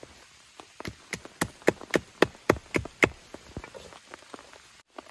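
A large knife blade chopping into a wooden stake, about ten quick sharp knocks over roughly two seconds, starting about a second in, as a notch is cut into the trap piece. Light rain patters underneath.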